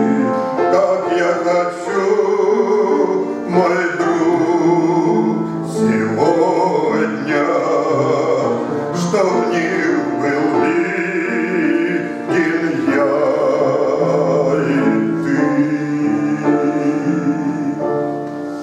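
A man singing a Christian hymn with vibrato over instrumental accompaniment of sustained chords.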